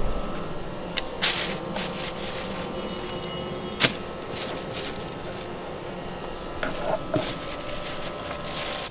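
Cleaning yellowtail snapper by hand: a knife scraping and tapping on a wooden cutting board, with scattered sharp clicks and short scratchy scrapes, over a steady hum.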